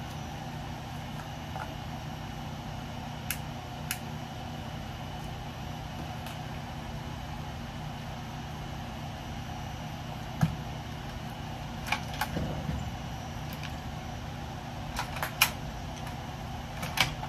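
Scattered sharp metallic clicks and clinks, a few at a time and more near the end, as screws are worked out of scrap electrical panels and dropped on the floor, over a steady low hum.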